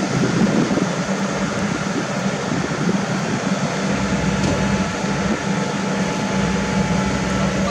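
Kobelco SK200 excavator's diesel engine idling with a steady low hum, the arm not working.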